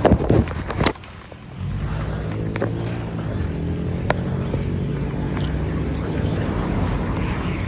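Rubbing and knocking of the phone against clothing in the first second. After that, a motor vehicle engine runs steadily close by, with a few light clicks over it.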